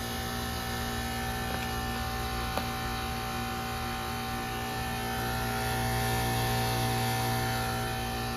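2003 Carrier WeatherMate 38YCC heat pump outdoor unit running with a steady hum, which swells for a couple of seconds in the second half. A single light click about two and a half seconds in.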